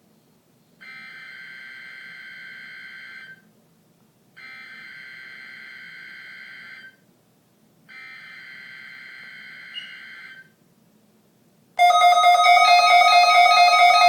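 Emergency Alert System SAME header data tones: three identical bursts of rapid electronic warbling, each about two and a half seconds long with about a second of quiet between them, marking the start of an EAS test. About twelve seconds in, much louder music with plucked-string notes begins abruptly.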